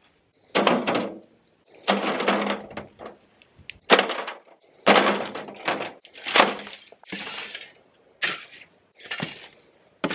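Shovel digging into dry earth and tipping it into a metal wheelbarrow: a gritty scrape and crunch about every second, some eight strokes in all.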